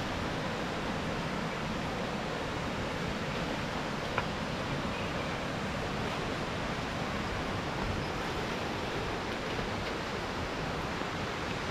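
Steady noise of a river flowing, with one brief click about four seconds in.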